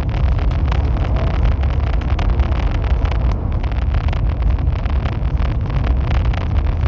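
High-speed train running at speed: a steady, heavy rumble with a dense scatter of small clicks and knocks throughout.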